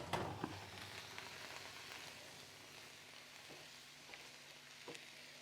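Faint, steady sizzling of green vegetables frying in a pan, with a few light ticks.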